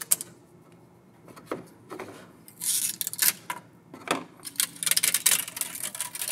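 3D-printed plastic parts being lifted off a 3D printer's glass build plate and set down in a hard plastic organizer tray: an irregular run of clicks, scrapes and clattering knocks, busiest in the middle.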